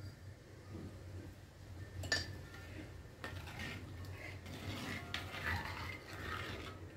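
A steel ladle stirring a thin tamarind gravy in a clay pot, scraping and knocking lightly against the pot's side, with a sharp clink about two seconds in.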